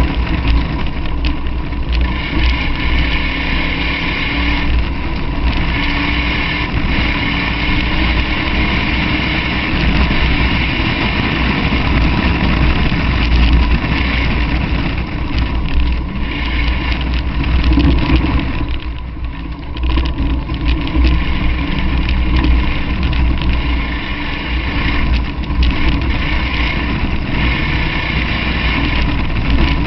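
Car driven fast along a dirt track, heard from outside the body: the engine runs under load over a heavy rumble of wind and road noise. The engine note rises early on and dips briefly about two-thirds of the way in, as the throttle is eased.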